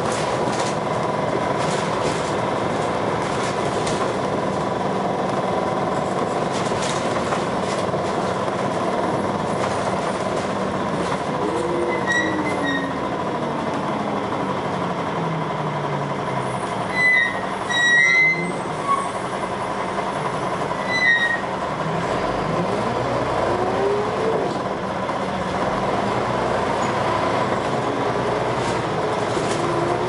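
Dennis Arrow double-decker bus's diesel engine and ZF automatic gearbox heard from on board while driving. The pitch falls as the bus slows, then rises again as it pulls away through the gears. A few short high squeals and louder knocks come around the middle.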